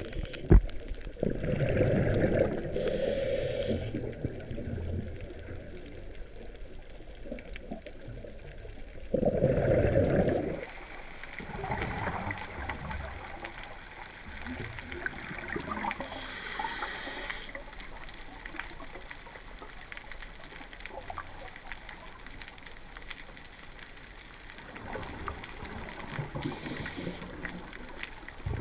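Underwater scuba breathing through a regulator: bursts of exhaled bubbles gurgling, twice loudly, with hissing inhalations in between. A sharp click just after the start.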